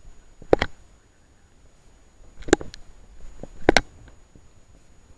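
Three sharp knocks: one about half a second in, one about halfway, and one a second later, with a few faint ticks around them.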